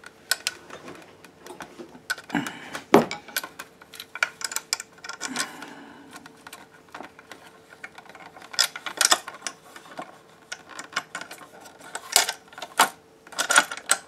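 Irregular clicks, taps and rattles of hands working the plastic fume extractor housing and its front grille, with one sharp knock about three seconds in and a busier cluster of clicks near the end. A faint steady hum runs underneath.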